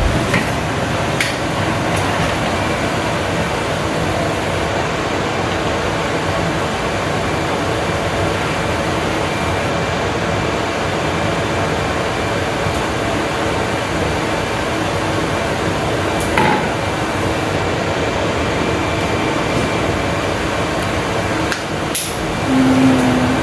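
Boiled pumpkin seeds being stirred and tossed in a bowl with seasoning: a dense, continuous rattle of many small clicks and scrapes, with a couple of sharper knocks near the end.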